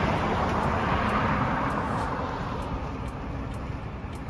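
Road traffic noise outdoors, a steady rush that slowly fades away over a few seconds.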